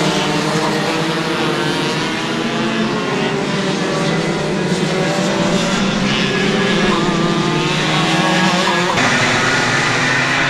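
Several go-kart engines running together at high revs, their pitches rising and falling as the karts accelerate and brake around the track. The sound changes abruptly about nine seconds in.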